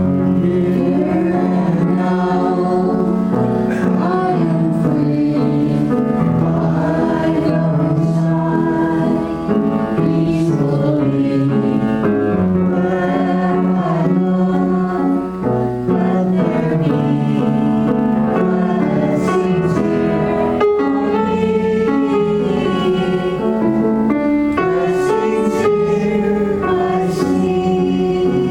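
Music: singing voices with piano accompaniment, played for a meditation.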